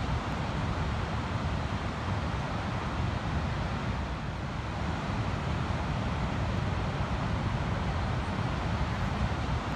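Ocean surf breaking on a sandy beach: a steady wash of noise with a strong low rumble, no single wave standing out.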